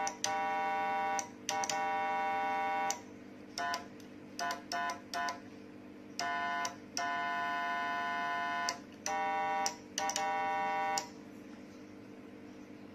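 Handmade electronic siren giving a steady, buzzy single-pitch tone in on-off bursts of mixed length, some brief and some over a second long, over a constant low electrical hum. The bursts stop about eleven seconds in, leaving only the hum.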